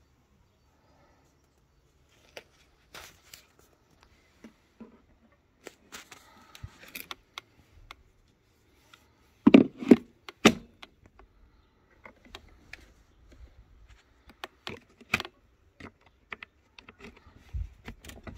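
Scattered plastic clicks and knocks from handling the battery compartment of a Parkside 20V cordless lawnmower, the loudest knocks coming about ten seconds in.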